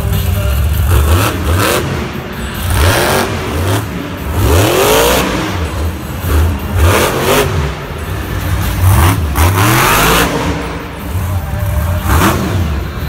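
Grave Digger monster truck's supercharged V8 revving hard in repeated bursts, its engine note climbing and falling again several times.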